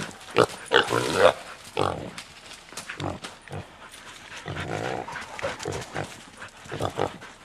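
Caught wild hog, a sow, squealing and grunting as its legs are tied. The cries are loudest and most frequent in the first second or so, then come fewer and softer.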